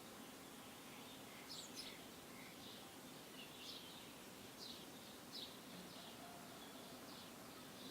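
Faint bird chirps, short notes falling in pitch about once a second, over a low outdoor hiss.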